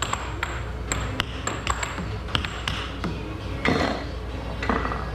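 An irregular run of sharp metallic pings and clicks, several a second, over a steady low hum.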